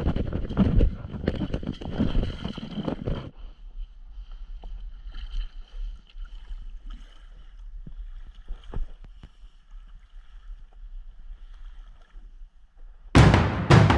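Kayak out on open water: water splashing and paddle noise with wind buffeting the microphone for the first few seconds, then much quieter, with scattered drips and small splashes. Music with drum hits cuts in near the end.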